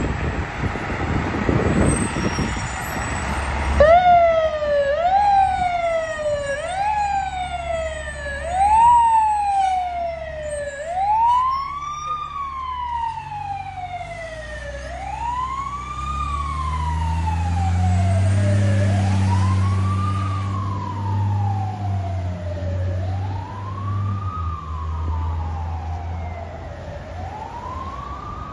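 Fire truck siren on a 2001 Pierce Quantum aerial platform truck starting up about four seconds in, its rise and fall quick at first and slowing into long wails, over the truck's engine, which grows louder mid-way as it pulls away.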